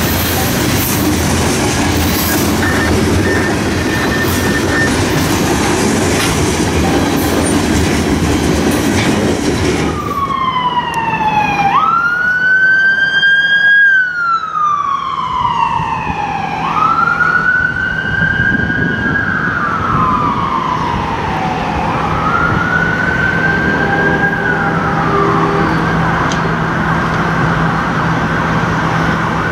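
A passing train's steady rail noise for about the first ten seconds, cutting off suddenly. Then a siren wails three times, each time rising quickly and falling slowly over about five seconds, before giving way to a steady hum.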